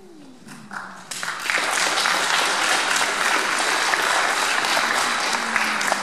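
Audience applauding. The clapping rises about a second in and then holds steady.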